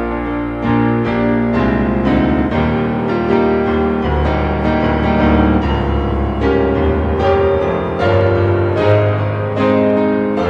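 Background music: a piano playing held chords that change every second or so.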